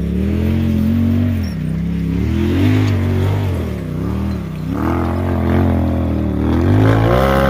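Off-road tube-chassis buggy's engine revving up and down several times as it claws up a steep, loose rocky climb, loudest near the end.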